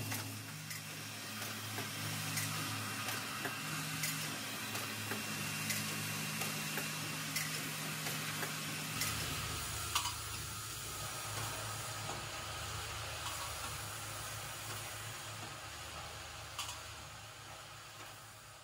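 Automatic lotion pump assembly machine running: a steady machine hum under an even hiss, with scattered sharp clicks from its pneumatic cylinders and parts moving through. The hum shifts lower about nine seconds in, and the sound fades out near the end.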